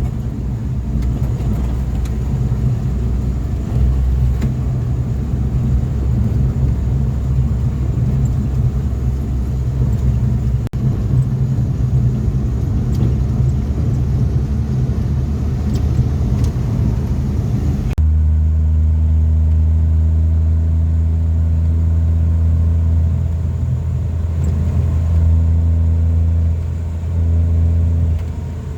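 Motor vehicle engine running with a steady low rumble. About 18 s in the sound changes suddenly to a steadier, deeper engine hum.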